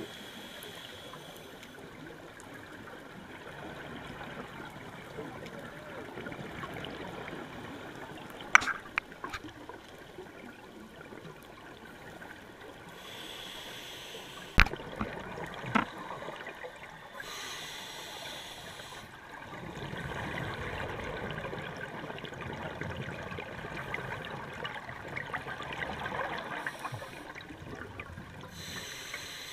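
Scuba diver breathing through a regulator, heard underwater: a few short hissing inhalations and longer bubbling exhalations. Three sharp clicks stand out as the loudest sounds, in the first half.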